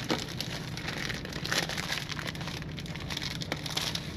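Thin clear plastic bag crinkling and rustling as it is pulled and worked off a battery-acid container, in a steady run of small irregular crackles.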